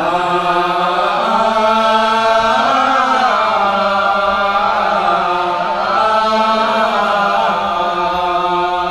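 A man's solo voice chanting a line of a Sasak hikayat, the traditional sung reading of a Malay tale, in long drawn-out notes. The pitch bends and wavers in melismatic turns on the held syllables, with no break for breath.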